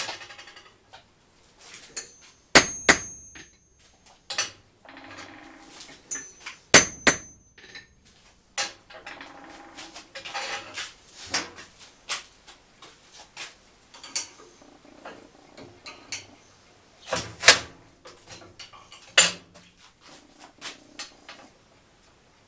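Bent steel rod pieces and rings handled and set down on a steel workbench: irregular metal clanks and clinks, a few loud ones ringing briefly, with softer scraping and rattling of metal on metal between them.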